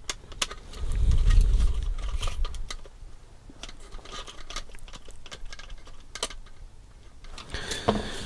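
Small clicks and taps of a plastic RC car chassis and parts being handled while a screw is worked with a screwdriver, with a louder low rumble about a second in and a cluster of clicks near the end.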